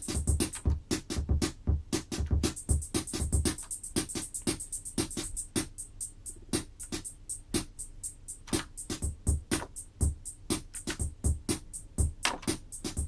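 Roland CompuRhythm CR-78 drum machine playing one of its rhythm patterns: quick, evenly spaced high ticks over low drum thumps, with the low thumps thinning out about three and a half seconds in.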